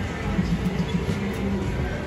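Background music over a steady low hum of an indoor public space.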